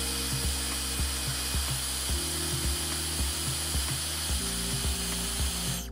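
Hair dryer blowing steadily, a loud hiss with a thin high whine, heating the display to loosen the adhesive under the front sensor; it cuts off abruptly at the very end. Background music with a steady beat plays underneath.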